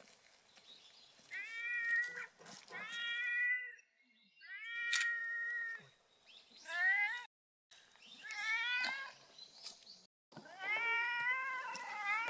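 Domestic cat meowing over and over, about six meows in a row, some bending up and then down in pitch.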